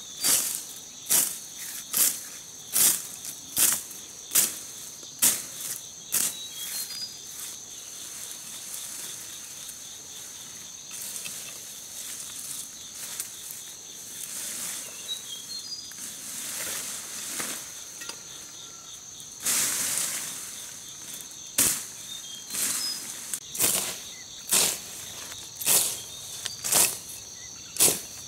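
Someone moving through dense undergrowth and leaf litter: short crisp rustles of leaves and vines about every three-quarters of a second, with longer swishes of brush partway through. A steady high insect drone runs underneath.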